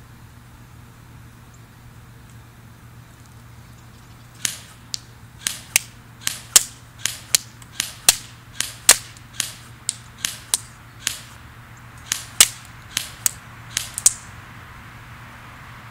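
CYMA CM041 MP5 airsoft electric gun fired on semi-auto: about twenty single sharp cracks, a third to half a second apart, starting about four seconds in and stopping after fourteen, as BBs hit the paper target.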